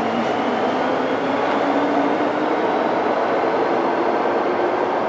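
MTR M-Train subway train pulling out of the station and gathering speed, heard through the platform screen doors: a steady rumble of wheels with the traction motors' whine slowly rising in pitch.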